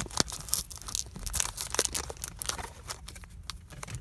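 Foil trading-card booster pack wrapper being torn open and crinkled by hand: irregular crackling and tearing, busiest in the first couple of seconds.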